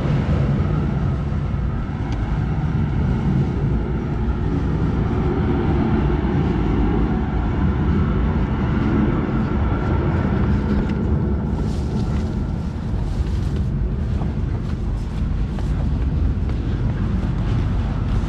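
Steady, loud rush of wind and low rumble on a moving freight train.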